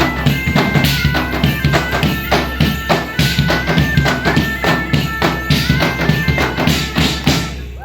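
Loud folk-style music: a piping melody of held, stepping notes over a steady drone and a regular drum and tambourine beat. It cuts off abruptly just before the end.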